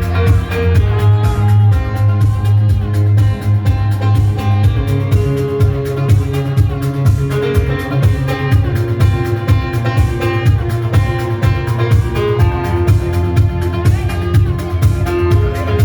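Dance music with a steady beat and a heavy bass line.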